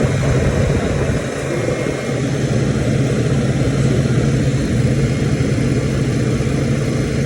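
Kairak refrigerated table-top unit running with a loud, steady mechanical hum.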